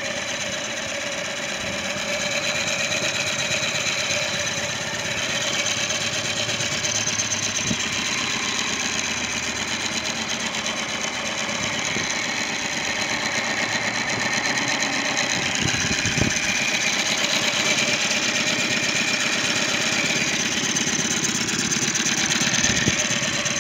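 Mercury tiller outboard motor running steadily with its lower unit in a test barrel of water, picking up slightly about two seconds in. The engine is running again after its oil-flooded cylinders and carburetor were drained and washed out.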